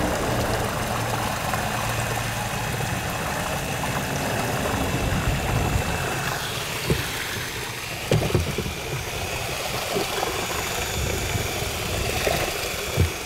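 Electric drill with a mortar-mixing paddle running steadily, stirring liquid polymer and modifier in a large plastic bucket, with a few short knocks of the paddle or bucket.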